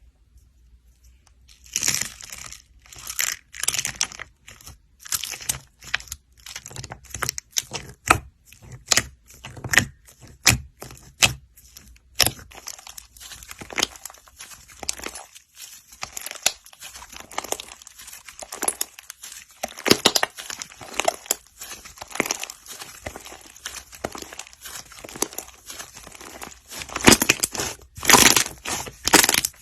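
Slime being squeezed, poked and stretched by hand, making a long run of irregular crackling and sticky clicking sounds.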